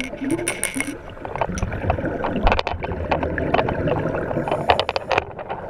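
Underwater sound through a camera housing: scuba divers' exhaled bubbles and a low muffled rumble, with many sharp clicks and crackles.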